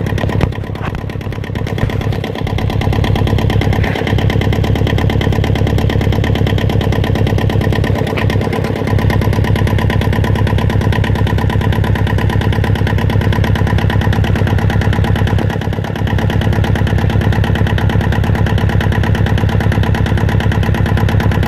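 Yanmar 2GM20 two-cylinder marine diesel engine running steadily at close range, with the rapid even beat of its firing, on a test run after servicing.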